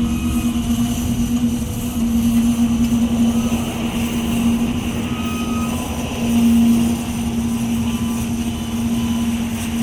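Freight train of double-stacked container well cars rolling past: a steady rumble of wheels on the rails with a constant low hum.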